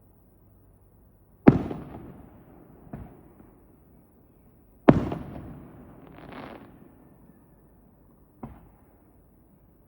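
Aerial firework shells bursting: two loud bangs, one about a second and a half in and one about five seconds in, each trailing off in a rolling echo. Two fainter booms fall between and near the end, and a short hissing swell follows the second loud bang.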